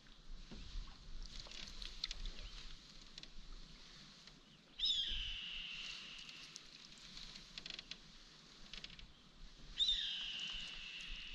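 A bird giving a high, clear call twice, about five seconds apart: each starts sharply, slides down and holds as a steady whistle for about a second and a half.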